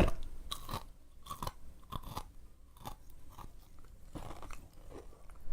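Close-miked mouth chewing sushi: a string of short, wet smacking clicks at an uneven pace, about two or three a second.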